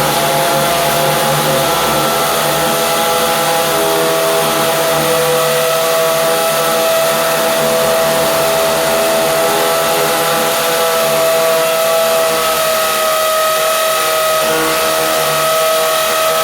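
Britânia BFU01 electric drill running continuously under load as a 10 mm bit drills into a masonry wall, with a steady motor whine.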